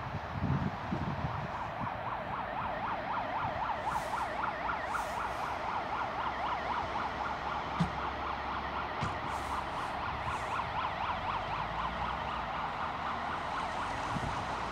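A siren-like electronic warning tone wavering quickly up and down, several times a second, that keeps sounding steadily from about two seconds in.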